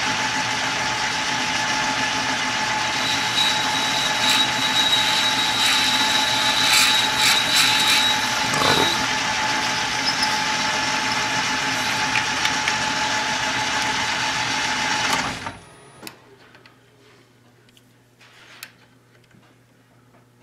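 Small metal lathe running steadily with a constant whine as the tool takes a cut on a brass crown-wheel blank, switched off about fifteen seconds in. Afterwards a few faint clicks as digital calipers are handled against the part.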